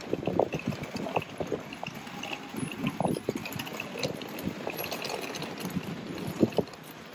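Pedestrian street ambience on stone paving: footsteps and the small wheels of a pulled suitcase rattling over the paving stones in an uneven clatter.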